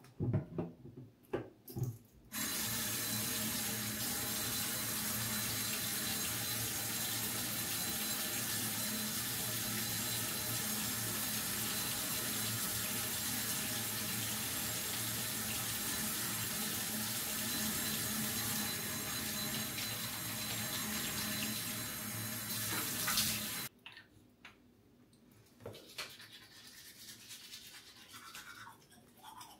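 Sink tap running steadily for about twenty seconds, turned on after a few knocks and shut off suddenly, followed by a few faint clicks and handling sounds.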